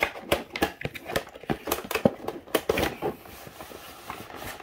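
Cardboard display box being handled and its sleeve slid off a foam tray holding a plastic-wrapped model airliner: a quick, irregular run of scrapes, rustles and clicks, the sharpest about two seconds in.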